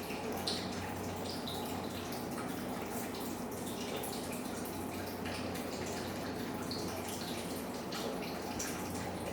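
Wet, sticky slime being handled: small scattered squelches and clicks over a steady background hum.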